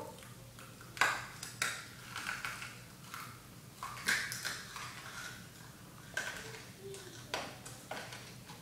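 Crinkly plastic lollipop wrappers crackling in irregular sharp bursts as wrapped lollipops are sucked and turned in the mouth.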